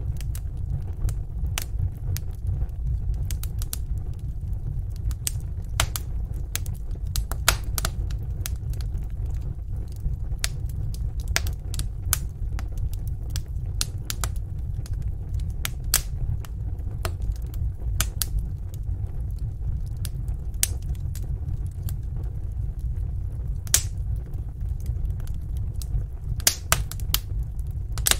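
Fireplace fire crackling: sharp, irregular pops and snaps, a few louder than the rest, over a steady low rumble of the flames.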